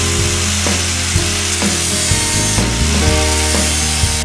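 Angle grinder with an abrasive disc grinding metal: a steady hissing grind that cuts off suddenly at the end, with background music underneath.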